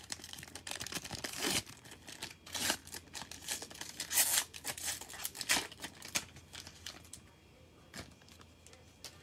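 A cellophane trading-card pack being torn open and its plastic wrapper crinkled by hand, in a string of short rips and crackles. The rustling dies down about seven seconds in, leaving a couple of faint clicks.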